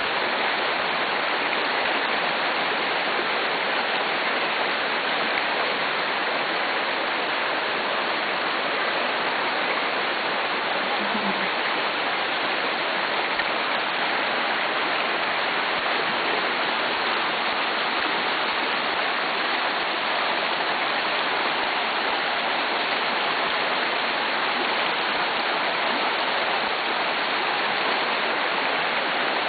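A small mountain stream rushing and splashing over rocks, a steady, even sound throughout.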